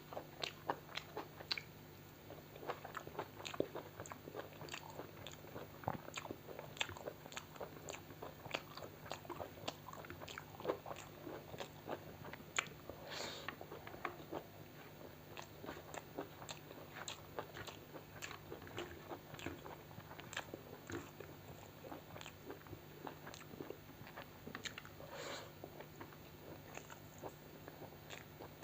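Close-miked chewing and biting of food, with many small wet clicks and crunches at an irregular pace, over a faint steady hum.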